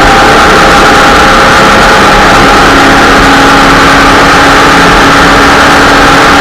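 Off-road race car's engine running hard at a nearly constant pitch, heard from inside the car, loud and steady with a broad rush of wind and road noise over it.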